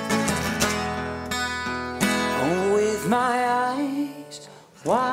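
Acoustic guitar strummed, with a man's singing voice coming in about halfway and returning after a short pause near the end.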